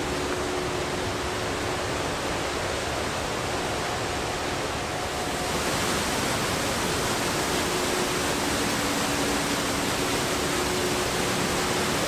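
Steady rushing of water from a tiered mountain waterfall, its hiss getting brighter about halfway through.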